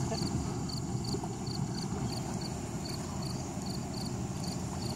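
Crickets chirping at evening in an even rhythm, about two short high chirps a second, over a steady low rumble.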